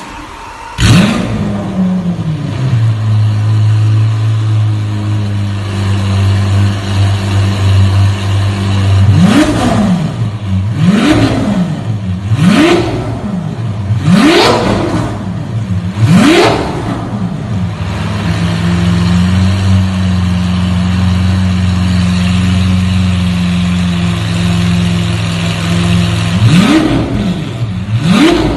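Lamborghini Aventador LP700-4's 6.5-litre V12 breathing through an Armytrix titanium exhaust: it starts up with a loud flare of revs about a second in and settles to a steady idle. It is then blipped sharply five times in quick succession, idles again, and is blipped twice more near the end.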